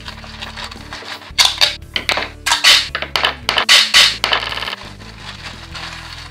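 Newspaper crinkling and rustling as it is folded and pressed around an axe head, in a run of loud, irregular crackles from about one to five seconds in that ends with a short buzzing rasp.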